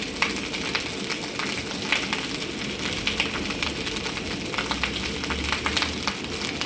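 Food sizzling in hot oil in a pan, with a steady hiss and irregular crackles and pops.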